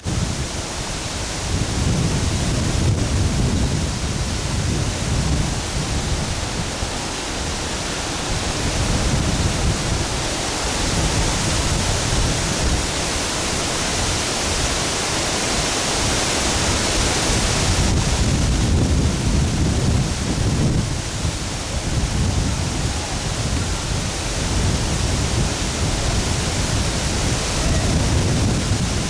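Waterfall's falling water rushing steadily, with an uneven low rumble underneath that swells and fades.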